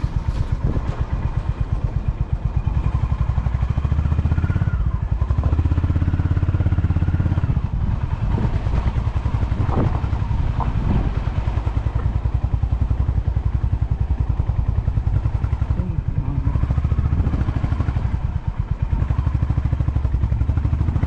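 Motorcycle engine running as the loaded bike is ridden over a rough off-road track, with an even, rapid firing pulse. The engine pulls harder about four seconds in and again near the end, and there are a few short knocks near the middle.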